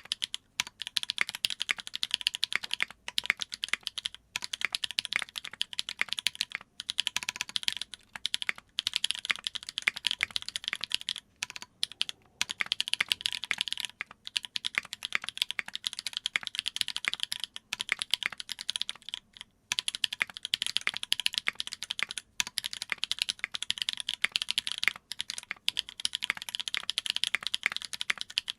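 Fast continuous typing on a Duck Jetfire mechanical keyboard with lubed Holy Panda tactile switches on an aluminium plate, GMK keycaps and lubed JWK stabilizers, with brief pauses between bursts.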